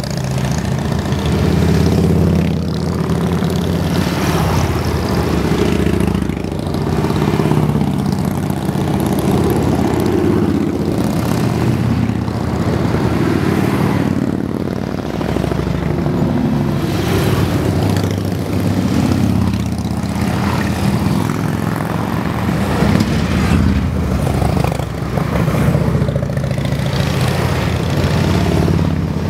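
A long stream of cruiser and touring motorcycles riding past at low speed, their many engines running together in a continuous low rumble that swells and eases as individual bikes pass close by.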